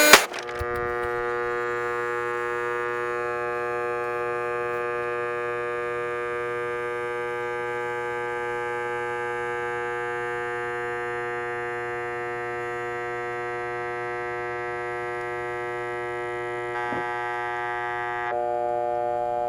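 A steady electronic drone of several held pitches sounding together, which shifts near the end as the higher tones drop out and a new one comes in.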